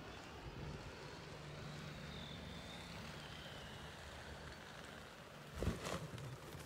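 Faint open-air background with a low steady hum, then near the end a brief swish as a swooping skydiver touches down and skids across the grass.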